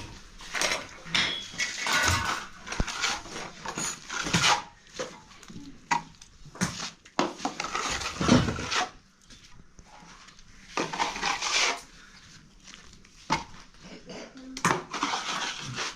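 Irregular clattering and scraping of hard objects being handled, with several sharp knocks; it is busiest over the first nine seconds and comes again in short spells later on.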